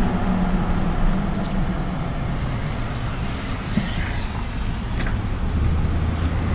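Car engine and road noise heard from inside the cabin of a moving car: a steady low rumble whose hum shifts lower near the end.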